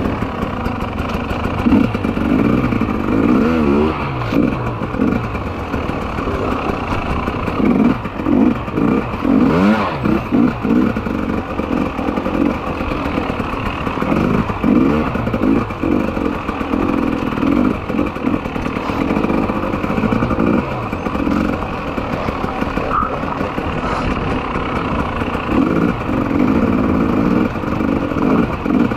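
Two-stroke enduro motorcycle engine heard from the rider's own bike, its revs rising and falling every second or two while riding a rough, muddy forest trail.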